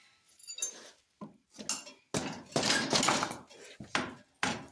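Metal tools and parts clinking and clanking as they are handled, a string of separate knocks with a brief metallic ring, the loudest clatter starting suddenly about two seconds in.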